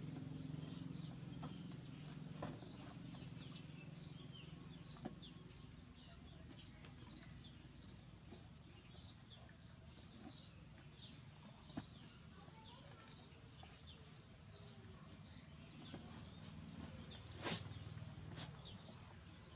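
A small bird chirping over and over, two to three short high chirps a second. A low hum runs under the first few seconds, and there is a single sharp click near the end.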